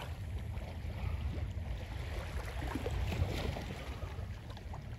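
Wind buffeting the microphone as a steady low rumble, over the faint wash of shallow bay water.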